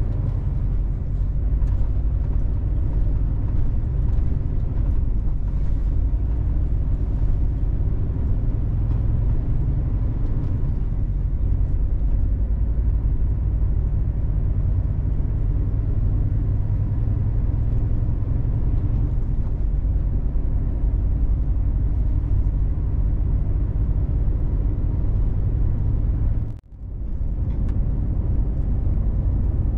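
Steady low rumble of a Scania truck's engine and tyres while cruising on the highway, heard inside the cab. Near the end the sound cuts out for a moment, then comes back.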